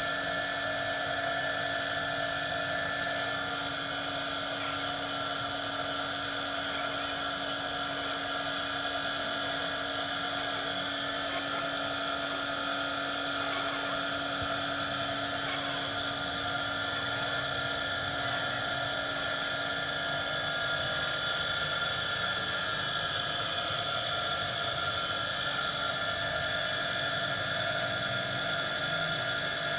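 A steady, unchanging machine drone with a constant whine, like a small motor running.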